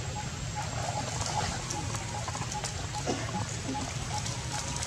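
Macaques swimming and climbing out of a pond: faint water movement and a few small squeaks and clicks over a steady low background rumble.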